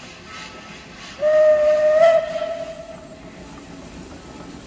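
Steam locomotive whistle: one blast starting about a second in, a single steady tone that rises slightly at its onset. It stays loud for about a second, then dies away slowly.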